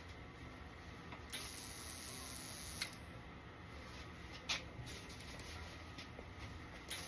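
Powder coating spray gun blowing air and powder in short bursts: a high hiss from about a second in to about three seconds in, then again near the end. A few sharp clicks fall between the bursts.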